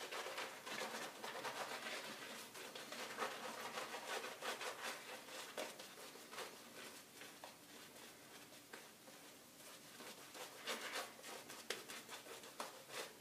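Shaving brush swirled over a stubbled face to work up soap lather: faint, quick, wet scratchy strokes. They ease off in the middle and pick up again near the end.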